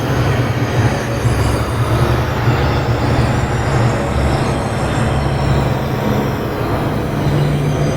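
Composed electronic ambient soundscape: a steady low drone under a dense, grainy wash of noise, with faint high tones sliding slowly above it.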